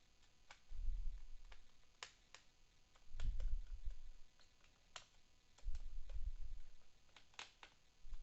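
Small clicks and ticks of a screwdriver working the back-cover screws into a Dell Latitude 5500 laptop's base. Three dull low bumps of the laptop being handled come in among them.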